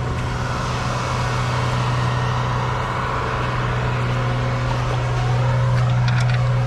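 Vehicle driving: steady engine and road noise with a constant low hum, and a few rising and falling tones near the end.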